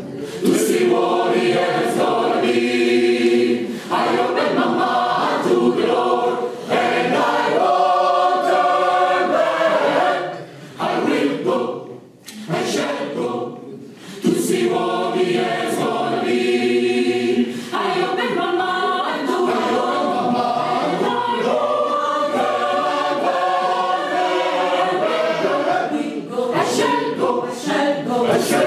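Mixed gospel choir of men and women singing in harmony. About ten seconds in the voices fall away briefly, then the full choir comes back in.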